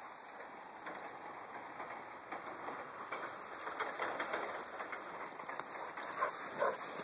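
Two dogs pushing through snow-covered brush: twigs rustling and snow crunching in many small clicks, with a few short dog noises near the end.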